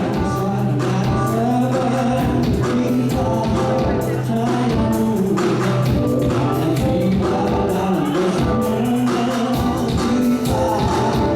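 Gospel group singing a hymn in harmony, backed by a band with a long held bass note and steady drums and cymbals.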